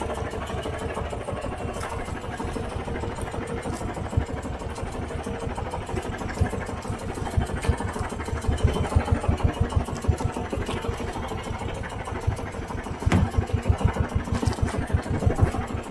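Small engine of a motorized outrigger boat running steadily with a fast, even chugging, growing louder near the end, with a few sharp knocks.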